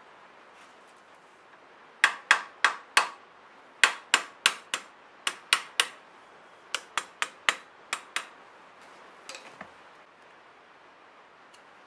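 Sharp knocks, about sixteen in quick groups of two to four, from a hand tool tapping on a Kohler K341 engine's carburetor as it is worked off the engine. A softer clunk follows near the end.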